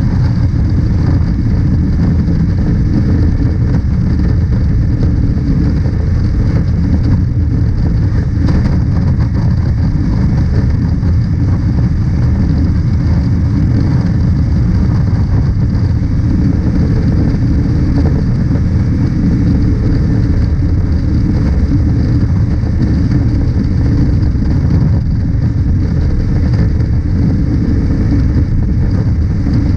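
Honda CB500X's parallel-twin engine running at a steady highway cruise, with heavy, even wind noise rushing over the microphone.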